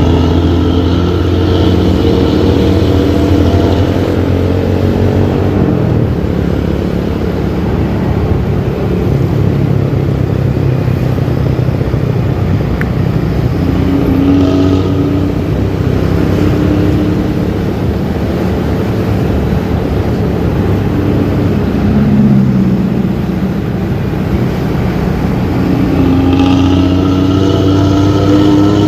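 Intercity bus diesel engine with a loud, growling aftermarket 'ngorok' racing exhaust, driving hard; the engine pitch rises and falls several times as it accelerates and shifts.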